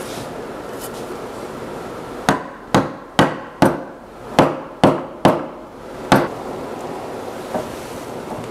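Eight sharp hammer knocks on wood, driving the turned spindles of a wooden chair back into their holes in the seat. Seven come about half a second apart, then a last one after a short pause.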